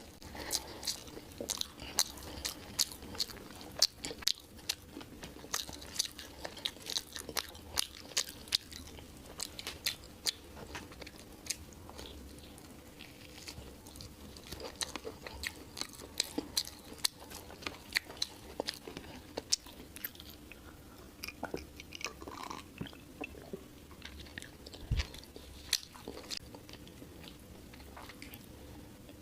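A person eating rice with beef curry and chicken stew close to the microphone: chewing with many short, sharp mouth clicks and smacks, thicker in the first half and sparser later.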